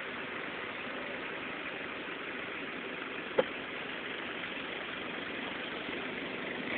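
Off-road SUV engine running steadily, with one short sharp knock about three and a half seconds in.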